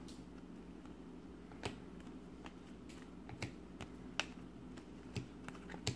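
Glossy trading cards (1998-99 Topps Finest basketball cards, still wearing their peel-off protector film) being flipped through by hand. Their edges give about six soft, sharp clicks at irregular intervals over a faint steady hum.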